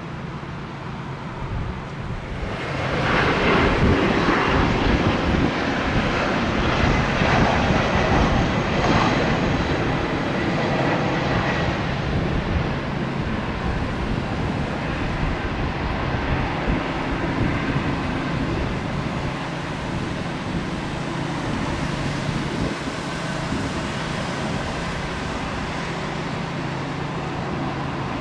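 Bombardier CRJ900 regional jet landing, its two rear-mounted GE CF34 turbofans heard close by. The jet noise swells sharply about three seconds in, with a high engine whine over the rush, then settles to a steadier, somewhat quieter rush through touchdown and the rollout.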